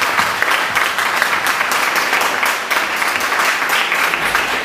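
Audience applauding steadily, a dense patter of clapping.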